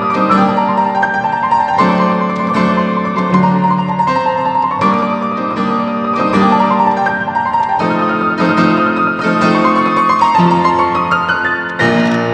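Solo piano playing a fast sonata movement: quick runs of notes climbing and falling over held low chords, with no break.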